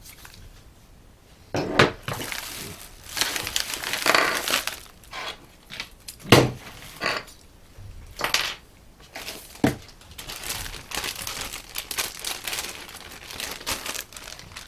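Plastic packaging bags and bubble wrap crinkling and rustling as they are handled and cleared away, with a few sharp knocks of small items set down on the table.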